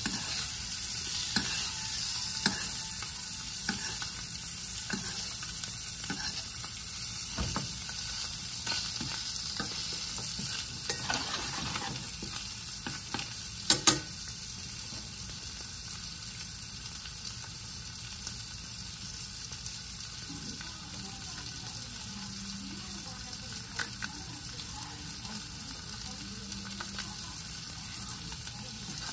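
Snapper fillets sizzling steadily in garlic butter and oil in a nonstick frying pan. Through the first half, a metal spoon clicks and scrapes against the pan while basting, with two sharp taps about fourteen seconds in. After that, only the steady sizzle.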